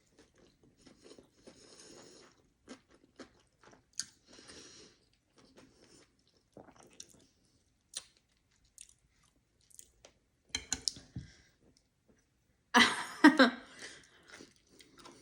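Close-miked mouth sounds of chewing and biting into sushi and tempura, with soft crunches and wet clicks, louder about thirteen seconds in.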